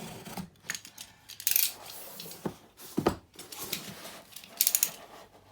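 A cardboard shipping box being cut open: short scraping slices through the packing tape, about a second and a half in and again near the end, with a few sharp clicks and knocks of the box being handled.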